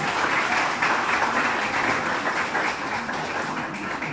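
Audience applauding: a dense patter of many hands clapping that slowly fades.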